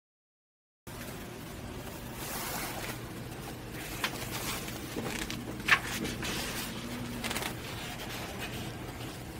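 Silence for about the first second, then shop room tone with a steady low hum, over which a paper sketchbook and a padded jacket rustle as they are handled, with a few sharp taps and clicks, the loudest about six seconds in.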